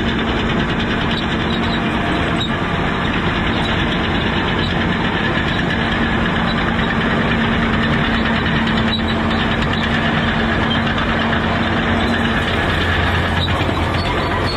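John Deere 850B LT crawler dozer's diesel engine running loud and steady as it moves dirt, with an excavator's engine running behind it.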